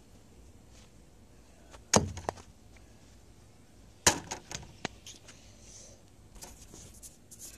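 Two sharp knocks about two seconds apart, each followed by a few lighter taps and clicks, over a quiet background.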